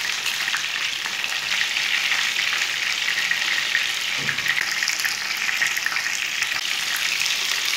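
Beef koftas sizzling steadily as they shallow-fry and brown in hot oil in a nonstick pan, a dense hiss dotted with small crackles. A spoon stirs and turns them during the first few seconds.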